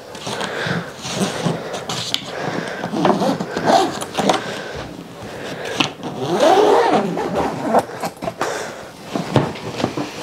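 Zipper on a hard-shell suitcase being pulled shut around the case: a rasping buzz that rises and falls in pitch as the pull speeds up and slows, with a few clicks along the way.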